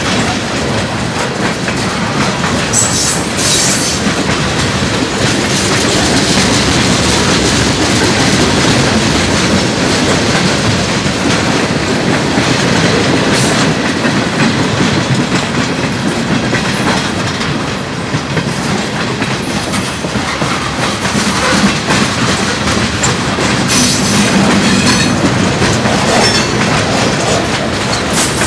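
Freight cars of a long train rolling past close by: steady rumble and clickety-clack of steel wheels over the rail joints, with brief high-pitched wheel squeals a few times.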